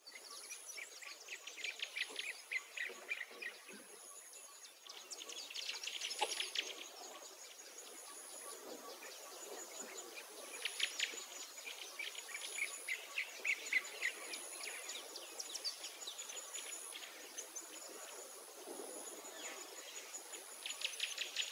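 Rural outdoor ambience of birds calling in quick chattering runs and insects, with a faint high-pitched insect note pulsing about once a second.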